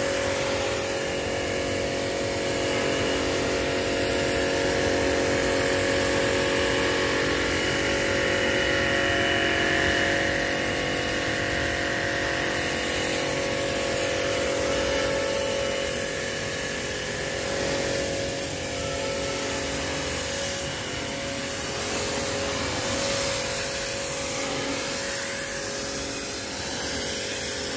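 Pressure washer running steadily, its motor and pump giving a constant hum under the hiss of the water jet spraying onto a wet concrete floor.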